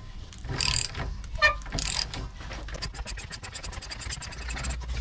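Socket ratchet wrench clicking rapidly, about ten clicks a second, as the rear leaf-spring U-bolt nuts are undone, after a couple of sharp metallic clanks of the tool in the first two seconds.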